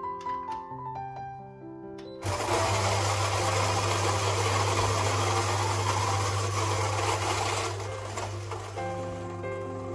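Fellow Ode electric flat-burr coffee grinder running and grinding beans: a loud steady whir with a low motor hum that starts abruptly about two seconds in and eases down after about five seconds.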